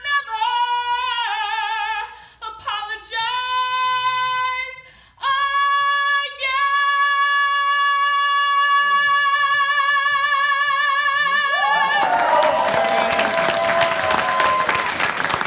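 A woman singing a song's closing phrase, ending on a long high note held with vibrato; about twelve seconds in, audience applause breaks out.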